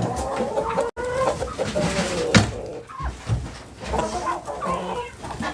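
Hens clucking and making drawn-out, wavering calls, with a sharp knock about two and a half seconds in and a couple of softer knocks after it.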